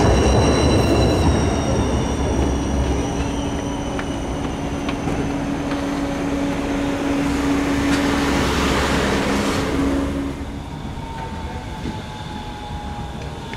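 Tram running on its rails, with a steady high-pitched wheel squeal over rumble and a low hum. The sound eases off about ten seconds in, leaving a slowly falling whine.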